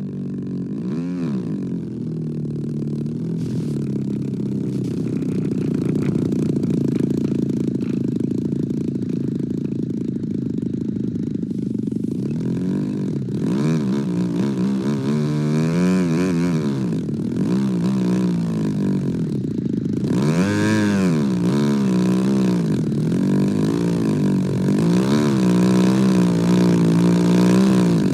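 Radio-controlled model airplane's engine running as it lands and taxis in: fairly steady at first, then its pitch rising and falling again and again with throttle blips about halfway through, growing louder as it nears.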